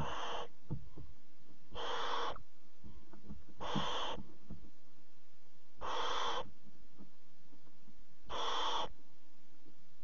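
Barn owl chicks giving their hissing begging calls: five rasping hisses about half a second each, spaced roughly two seconds apart. Faint scratches and knocks of the birds shifting on the floor of the wooden nest box come between them.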